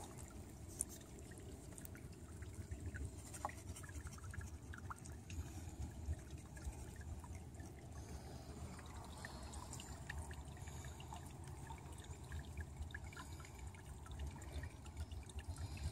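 Faint water trickling and dripping as a small aquarium net is dipped in a garden pond and drained over a plastic container, with scattered small ticks of handling over a low rumble.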